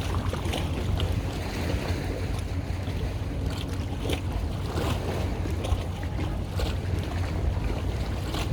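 A boat's engine running steadily with a low hum, water splashing along the hull, and wind buffeting the microphone.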